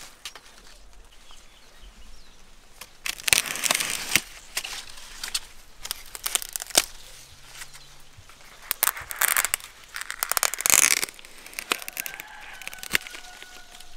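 Dry sugarcane leaves and leaf sheaths rustling and crackling in several bursts as the canes are handled.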